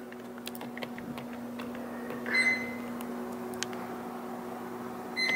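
Two short high electronic beeps, one about two seconds in and one near the end, over a steady low electrical hum, with a few faint clicks.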